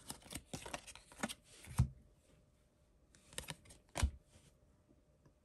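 Trading cards being handled and flipped: a quick run of light clicks and rustles as cards slide off the stack, then a few more taps and one sharper tap about four seconds in.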